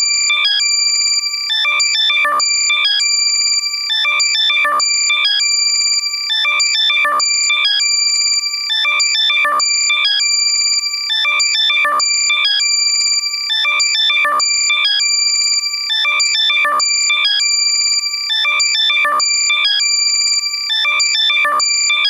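Loud, heavily compressed electronic locator tone for finding a lost left AirPod: high, ringtone-like beeps and quick chirps over steady tones, in a pattern that repeats about every two seconds.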